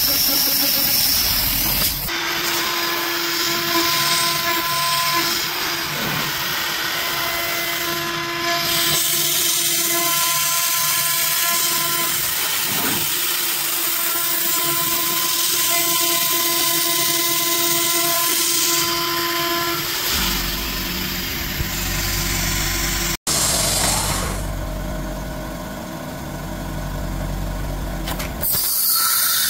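A CNC router spindle milling 6061 aluminium plate with an end mill, giving a steady pitched cutting tone over the hiss of an air-blast or mist-coolant nozzle. The tone drops out about twenty seconds in, and mostly hiss is left after a brief break.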